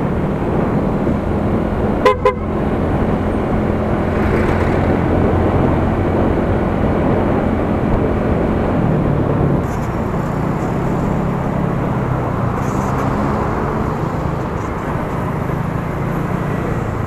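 A small motorcycle's engine running at cruising speed, with wind and road noise. About two seconds in, a short double horn toot.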